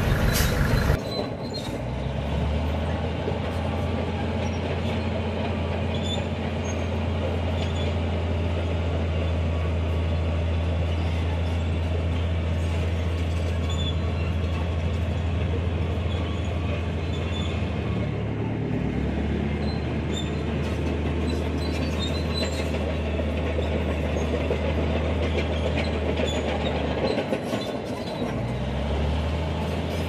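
Bulldozer's diesel engine running with a steady low drone and faint high clicks from its crawler tracks; the engine note shifts twice, about two-thirds of the way in and again near the end.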